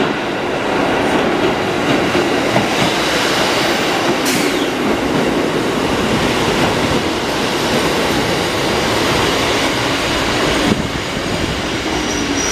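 Kotoden 1200-series electric train pulling into the station and slowing to a stop: a steady rumble and clatter of wheels on rail joints, a brief high falling squeal about four seconds in, and a sharp knock near the end.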